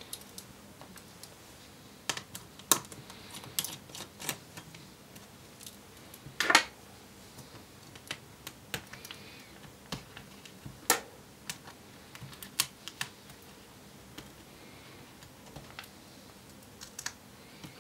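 Scattered small clicks, taps and light scrapes of hands handling a laptop battery and its connector inside the open chassis, with one louder knock about six and a half seconds in.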